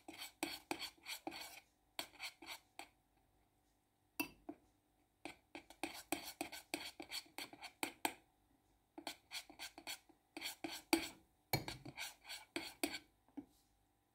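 Spoon scraping and clicking against a glass bowl in quick strokes as flour is stirred into a thick honey-cake batter. The strokes come in runs of a second or more, with short pauses between them.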